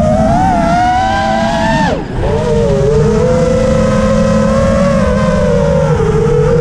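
FPV racing quadcopter's brushless motors whining loudly. About two seconds in, the pitch drops sharply as the throttle is cut, then climbs back and holds steady.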